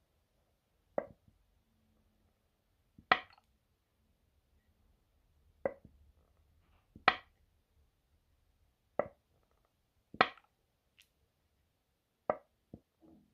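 A lighter-fuel refill being pressed again and again into a Zippo lighter. Each press gives a sharp click or knock, about nine in all, coming every one to two seconds and often in pairs.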